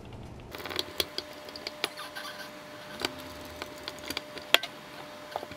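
Hand screwdriver driving screws into the metal casing of a Bose Lifestyle 28 amplifier module: scattered light clicks and metal taps, the sharpest a little past the middle.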